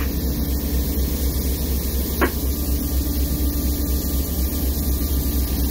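Steady cab noise of an EMD SD40-2 locomotive: the 16-cylinder two-stroke diesel's low pulsing rumble under a constant hiss, with one short click about two seconds in.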